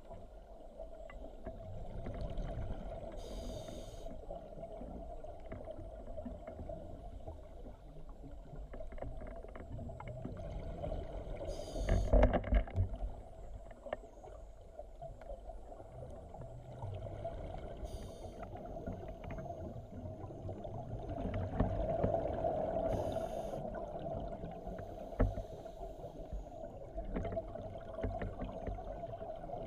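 Scuba regulator exhaust bubbles heard underwater: bursts of bubbling every several seconds, the loudest about twelve seconds in, over a steady muffled hum and rumble.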